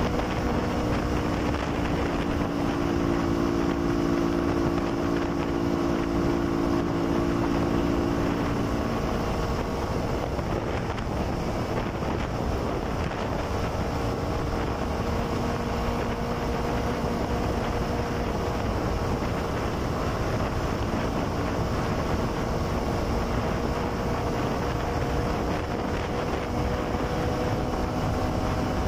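Motorcycle engine running steadily on the road, with heavy wind noise on the microphone. The engine note holds fairly even, shifting slightly in pitch about a third of the way in.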